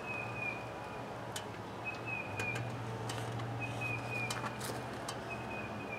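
A bird calling: a high, slightly falling whistle about a second long, repeated four times. A few faint taps come from the gel block being handled.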